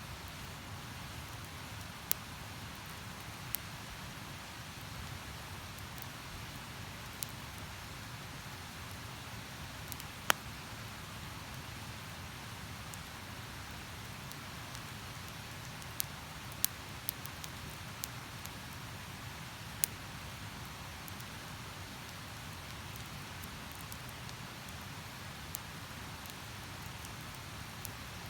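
Wood campfire crackling, with sharp irregular pops a few seconds apart, over the steady rushing of a nearby river.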